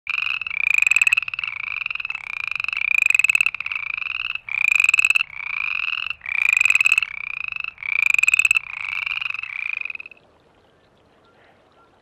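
Western chorus frogs calling: short, slightly rising trills, one after another about once a second, with louder and softer calls taking turns. The calling stops about ten seconds in.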